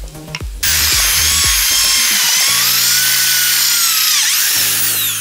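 Electric drill boring a twist bit through a plated steel strip: a loud, hissing screech with wavering high whines that starts about half a second in. Background music with steady bass notes plays underneath.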